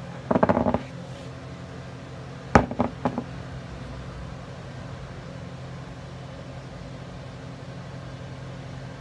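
Plastic craft containers being set down and knocked on a countertop: a short clatter about half a second in, then a sharp knock a couple of seconds later followed by two lighter ones, over a steady low hum.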